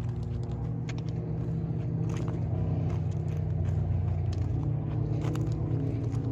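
Diesel locomotive engine idling with a steady low drone that grows slightly louder, with scattered crunching footsteps.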